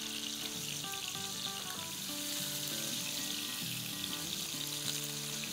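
Fish pieces shallow-frying in hot oil with a steady sizzle and fine crackle while they are lifted out of the pan. Background music with held, stepping melody notes plays over it.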